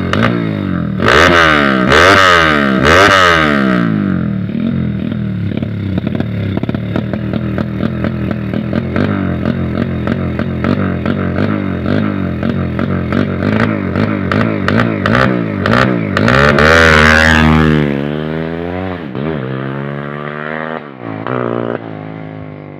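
Motorcycle with a 200 cc single-cylinder GL engine and a CTS aftermarket muffler, blipped twice about a second in, then idling with a loud choppy exhaust beat. It is revved again about two-thirds of the way through, then drops back and fades near the end.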